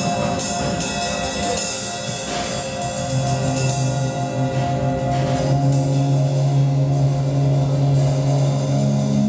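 Live rock band playing: electric guitar and keyboard holding steady tones over a drum kit with cymbal hits. A low note comes in strongly about three seconds in and holds.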